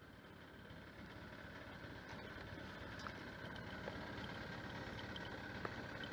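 Small fishing boat's engine idling, a steady drone with a faint whine above it, growing slightly louder, with a few faint clicks of gear.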